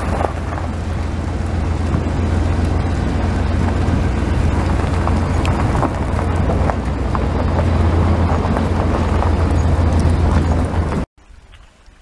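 Vehicle driving on a rough dirt and gravel road, heard from inside the cab: a steady low rumble with scattered clicks and rattles. It cuts off suddenly about eleven seconds in, leaving faint wind outdoors.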